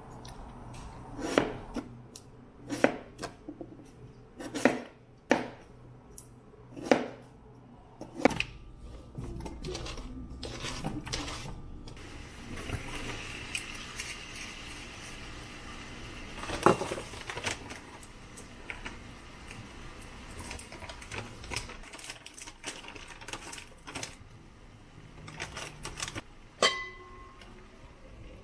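Stovetop cooking: sharp knocks about every second and a half, then a hiss and sizzle as cooking wine is poured over baby napa cabbage in a hot pan. Near the end the pan lid is set on with a clink that rings briefly.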